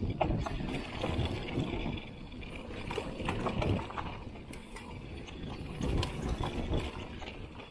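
Giant Trance X 29 full-suspension mountain bike descending a dirt trail: tyres rumbling over the dirt and the bike clicking and rattling over bumps, in uneven surges.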